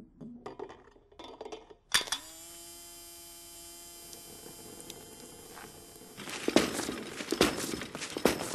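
Honda car parts knocking and rolling into one another in a chain reaction: scattered light taps, then a sharp metallic strike about two seconds in that rings on steadily for several seconds, then a loud, dense clattering of many rapid knocks near the end.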